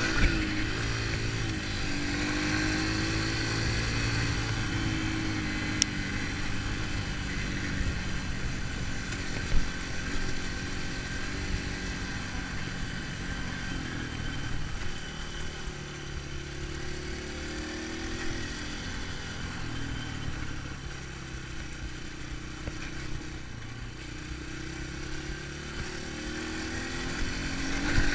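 Dirt bike engine running under way on a gravel road, its pitch rising and falling as the throttle is worked. A few sharp knocks cut through the engine.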